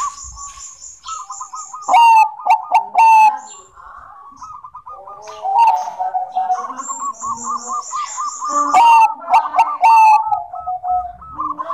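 Zebra dove (perkutut Bangkok) cooing in runs of quick, wavering notes, with two louder clusters of notes about two seconds in and again near nine seconds. Thin, high chirps run alongside at the start and again around seven seconds in.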